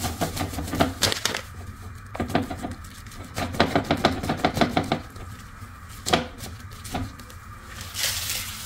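Crinkly plastic Milo packet being handled and shaken over a mug, giving bursts of short crackles and taps as the chocolate malt powder is tipped in.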